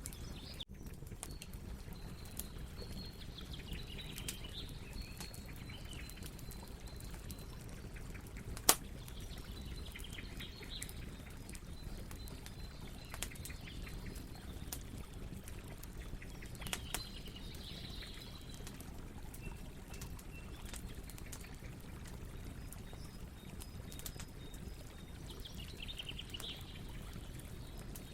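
Campfire burning with a steady low rumble and scattered crackles, and one sharp loud pop about nine seconds in. Over it, crickets chirp in short high clusters that come and go every several seconds.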